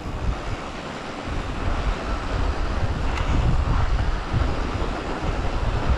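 Wind buffeting the microphone: an uneven, gusting low rumble over a steady hiss.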